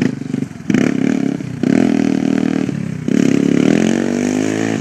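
Small ATV engine revved in surges, about three times, fading near the end.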